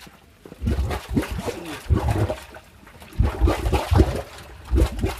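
Methane gas bubbling up through water from underground, in irregular gurgling pulses with a few short wavering, moan-like tones. The sound is likened to someone sobbing below the ground.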